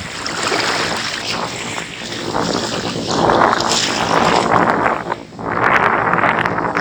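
Wind gusting against the microphone, rising and falling in surges, with a brief lull about five seconds in.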